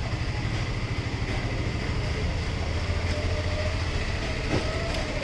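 A steady low machine rumble with a fast fluttering texture.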